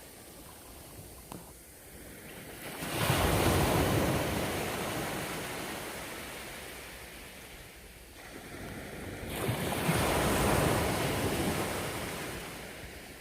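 Sea waves breaking on the shore: two waves, the first about three seconds in and the second about six seconds later, each surging in quickly and slowly fading as the water washes back.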